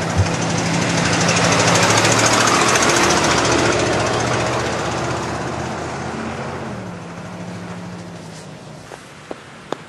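A small SUV driving past close by: engine and tyre noise swell to a peak about two to three seconds in, then fade as it moves away. A few small clicks near the end.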